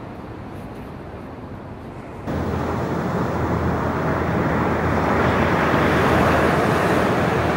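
Ocean surf. A low, distant wash at first, then from about two seconds in, louder waves breaking and washing up a sandy beach close by, building toward the end.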